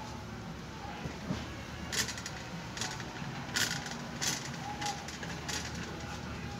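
Steady indoor room hum with a run of sharp clicks or rattles, about one every two-thirds of a second, starting about two seconds in; the one in the middle is the loudest.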